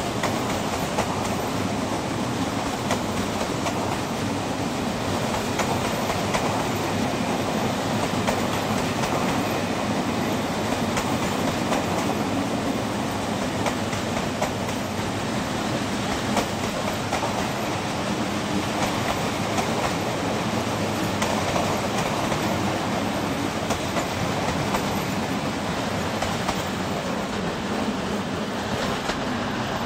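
Train of passenger coaches rolling past, the wheels clattering steadily over the rail joints.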